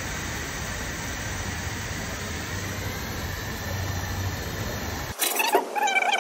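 Steady hissing rush with a low hum from air-powered oil-change equipment working on the engine oil. It cuts off suddenly about five seconds in, and background music takes over.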